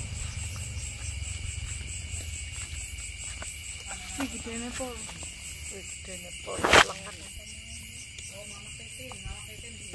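Night-time chorus of crickets: a steady high trill with a faster-pulsing, higher band above it. About seven seconds in, one loud, sharp knock cuts through it.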